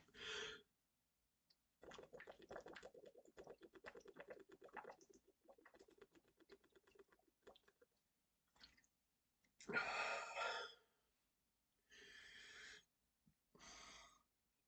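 Faint crackling and clicking for about four seconds, then three short breaths, the first about ten seconds in being the loudest: a man breathing between burps after chugging root beer.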